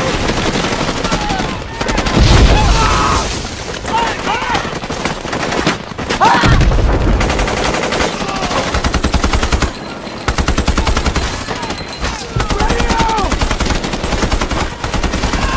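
Battle soundtrack of rapid automatic rifle and machine-gun fire, with heavy low blasts about two and six seconds in and men shouting over the shooting.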